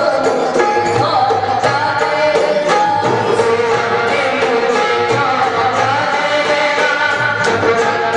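A woman singing a song into a microphone with tabla accompaniment, her voice holding long, gliding notes over the drum strokes.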